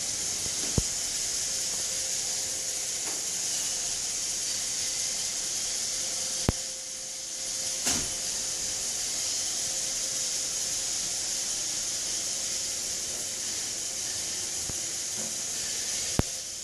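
iRobot Roomba robot vacuum running: a steady hissing whir with a faint hum under it, broken by a few sharp knocks, one about a second in, two near the middle and one near the end.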